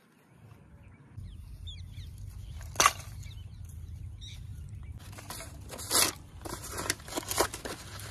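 Dry wooden sticks clattering and knocking against each other and against the hearth stones as they are dropped and laid for a fire. There is one loud sharp knock about three seconds in and a run of clicks and cracks in the second half.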